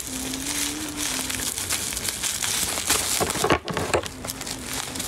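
Clear plastic gift wrapping crinkling and rustling as it is handled and pulled open by hand, with a few sharper crackles after about three seconds.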